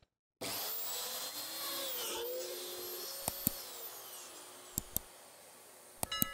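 Mafell DD40 dowel-hole drilling machine starting abruptly about half a second in and running with a high whine as it bores dowel holes into a pine panel. It then fades away over the second half, with several sharp clicks near the end.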